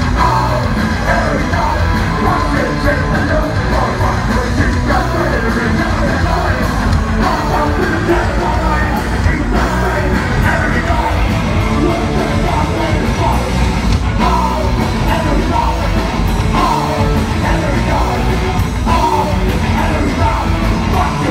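Live punk rock band playing a song: a singer's lead vocals over electric guitars, bass guitar and drums, heard from within the crowd.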